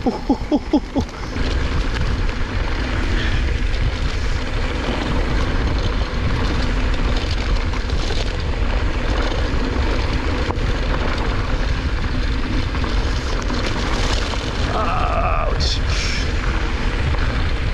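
Wind rushing over the camera microphone and mountain bike tyres rolling fast over a dirt singletrack: a steady loud rumble with light rattles from the trail.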